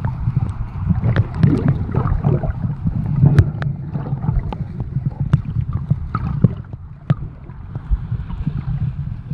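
Water moving around a camera held underwater in the shallows: a steady low rumble with scattered sharp clicks and knocks and some gurgling, easing off somewhat near the end.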